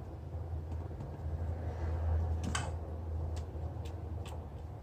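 Low, steady hum, most likely from a pet water fountain's small pump, with a few light clicks and taps in the second half.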